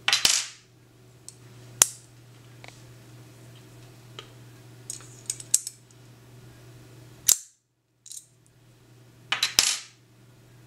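Vintage bronze padlock worked by hand with a flat slotted key: a series of sharp metallic clicks and clacks as the key turns and the shackle snaps shut and springs open again. The loudest clicks come at the start, about seven seconds in and near the end, with a few small ticks in between.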